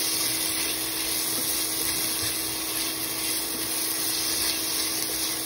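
Diced ham frying with sliced mushrooms and onion in oil in a nonstick pan: a steady sizzle, with a faint steady hum underneath.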